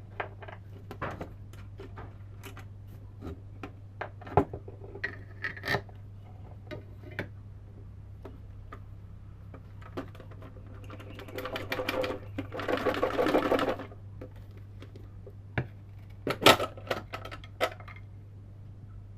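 Scattered clicks and knocks from handling a homemade onion slicer built from a can and a sewing-machine motor. Just past the middle, the sewing-machine motor runs for about three seconds, followed by a few sharp knocks.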